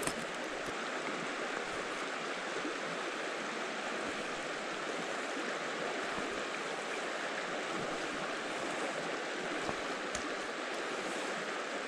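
Freestone mountain stream flowing, a steady, even rush of water, with a couple of faint small clicks.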